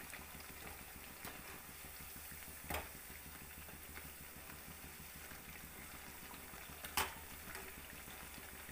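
Battered potato bajji deep-frying in hot oil: a faint, steady sizzle. A wire skimmer clinks against the metal pan twice as the fritters are turned, a little under three seconds in and again, louder, about seven seconds in.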